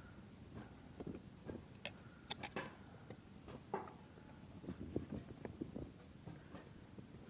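Faint scattered clicks and taps of handling, with a quick cluster of sharper clicks about two and a half seconds in.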